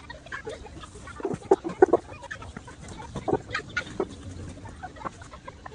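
Chickens clucking in short calls, loudest about a second and a half to two seconds in and again past three seconds, with scattered light taps.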